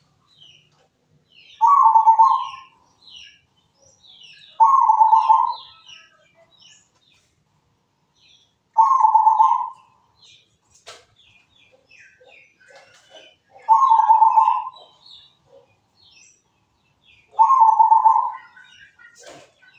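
Zebra dove cooing: five loud, trilling coos, each about a second long and several seconds apart, with faint high chirps between them.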